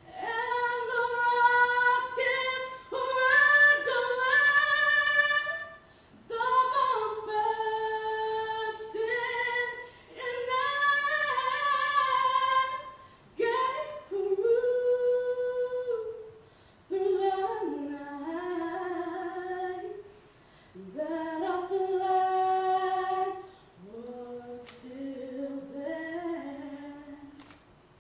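A woman singing unaccompanied into a microphone: long held notes in phrases of a few seconds, sliding between pitches, with short pauses for breath. The later phrases are lower and softer.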